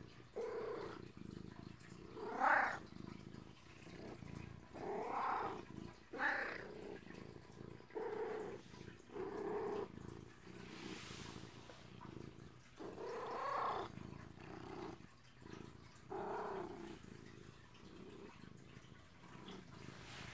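Long-haired cat purring close up against the body, the sound rising and falling in repeated swells every second or two.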